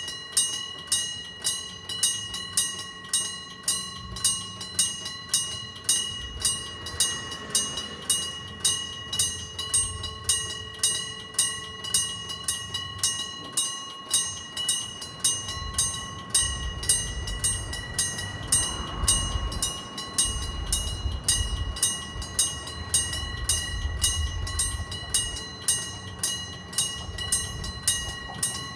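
Japanese railroad crossing warning bell ringing in a steady, even rhythm, about one and a half strikes a second. A train rumbles through the crossing in the second half.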